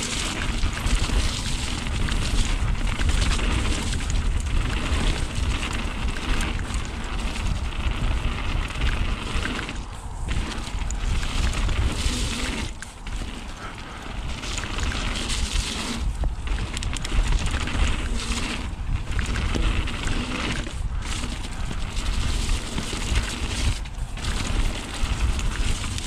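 Mountain bike descending a wet, rough trail: wind buffeting the microphone with a heavy rumble, tyres rushing over the dirt, and frequent knocks and rattles from the bike over bumps.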